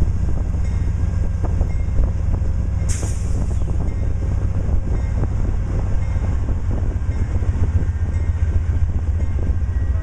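Amtrak Superliner bi-level passenger cars rolling past: a steady low rumble with wheels clicking over the rail joints, and a sudden hiss about three seconds in.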